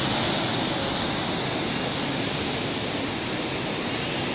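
Fast-flowing river running over rapids: a steady, even rush of water.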